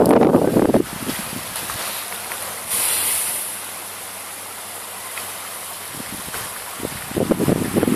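Wind buffeting the microphone in gusts: loud, low rumbling for the first second and again near the end, dropping between to a quieter steady outdoor hiss with a brief high rush about three seconds in.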